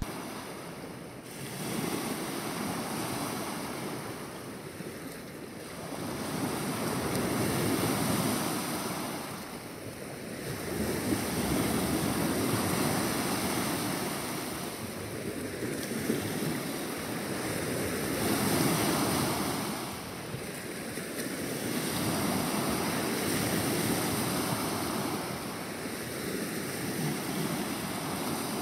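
Small waves breaking and washing up on a beach, the surf swelling and easing every few seconds.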